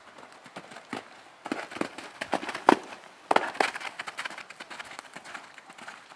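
Horse cantering past on an arena surface: a run of sharp, uneven hoofbeats that grows louder and is loudest a little past the middle as the horse passes closest, then fades.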